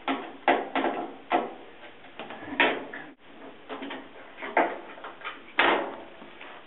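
A Phillips screwdriver working the screws under a Whirlpool dryer's lint filter lid, with irregular clicks, scrapes and knocks of metal parts being handled; the loudest come about half a second, two and a half seconds and five and a half seconds in.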